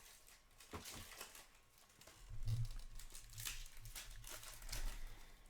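Hockey trading cards and their foil pack wrappers being handled: scattered soft crinkles, rustles and scrapes.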